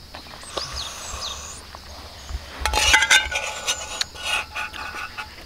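Dishes clinking and rubbing, with a quick run of ringing clinks about two and a half seconds in and a few lighter knocks after.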